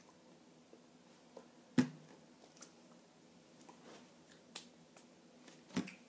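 Several short, sharp slaps and taps of hands moving in sign language. The loudest comes about two seconds in and another just before the end, with a few fainter taps between, over a faint steady hum.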